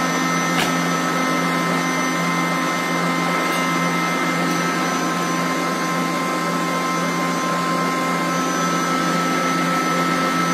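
Electric stand mixer running steadily at speed, whipping egg whites for meringue: a loud, even motor whine, with a light click about half a second in.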